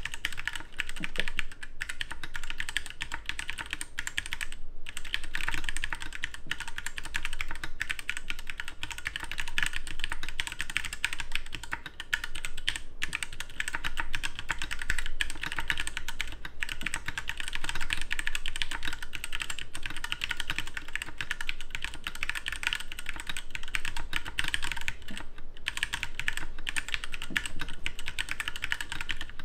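Steady, continuous typing on a 60% custom mechanical keyboard with unlubed Gateron Yellow linear switches and cheap keycaps: a dense stream of keystroke clacks.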